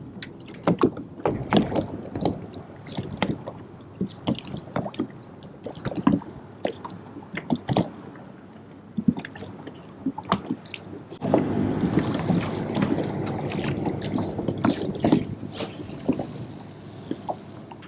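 Small waves lapping and slapping against a boat's hull in irregular knocks, with wind on the microphone. About eleven seconds in, a louder, steadier rush of water and wind starts abruptly.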